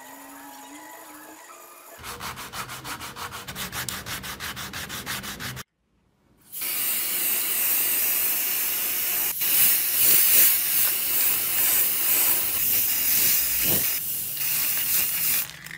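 Cloth-backed sanding strip worked back and forth over a wooden hammer handle, scraping a few strokes a second. After a short break, an aerosol can of lacquer spraying in a long, loud hiss with a couple of brief breaks.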